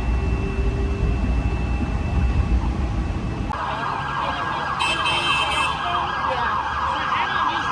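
Low rumble of street traffic, then about three and a half seconds in an emergency-vehicle siren starts up, its pitch swinging rapidly up and down, and cuts off abruptly at the end.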